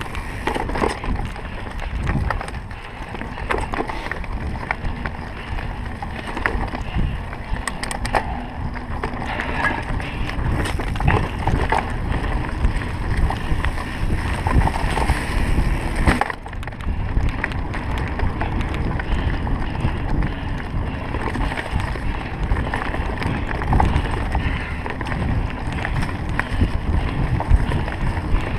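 Trek EX 9 29 full-suspension mountain bike ridden over a dirt trail: tyre noise on dirt and a steady run of clicks and rattles from the bike over bumps, under wind rumbling on the microphone. The sound drops out briefly about sixteen seconds in.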